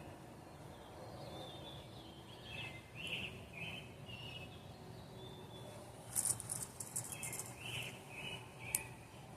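Birds chirping in short, repeated notes over a low steady background hum. A quick run of sharp high clicks comes about six seconds in, and a single sharp click comes near the end.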